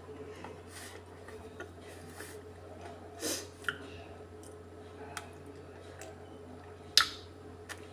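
Eating ice cream from a plastic tub with a metal spoon: light clicks and scrapes of the spoon, and mouth sounds of eating. A slurp comes about three seconds in, and a sharp click near the end is the loudest sound. A steady low hum runs underneath.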